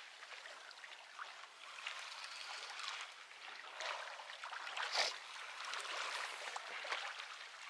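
Steady hiss of flowing water at the water's edge, with a few faint ticks and a short knock about five seconds in.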